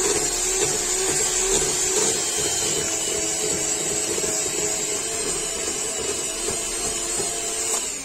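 SilverCrest electric hand mixer running steadily, its beaters churning thick marshmallow cream in a stainless steel bowl. Near the end the motor is switched off and its pitch falls away as it spins down.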